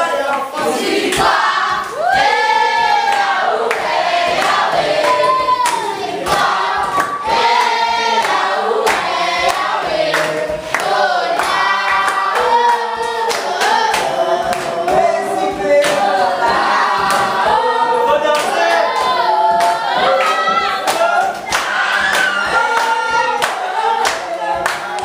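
A group of voices singing a song together, with hand claps.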